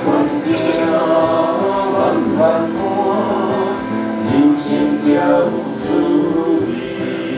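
Small street band playing live through small amplifiers: sung melody over instrumental accompaniment.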